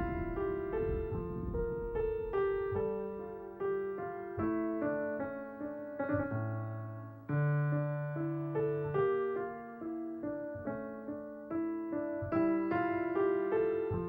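Background piano music: a slow melody of single notes over soft chords, each note struck and left to fade, with a few deep bass notes about halfway through.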